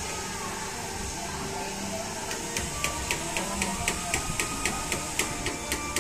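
Toyota BJ40's diesel engine running with a steady noise. A regular light ticking, about four ticks a second, starts about two seconds in.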